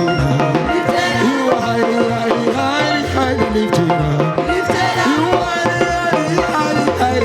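Praise and worship band playing an upbeat song, with drums, bass and voices singing the melody.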